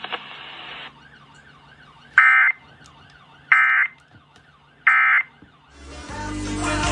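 Emergency Alert System end-of-message data tones: three short, harsh digital bursts about 1.3 seconds apart, marking the end of the alert, heard through a radio broadcast. Music fades in near the end as regular programming resumes.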